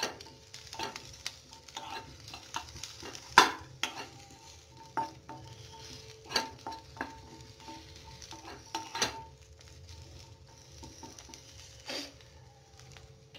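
Cut onion, green chilli and garlic sizzling in a little oil in a nonstick kadhai while a spatula stirs them, with irregular scrapes and knocks of the spatula against the pan. The loudest knock comes about three and a half seconds in, and the stirring stops near the end.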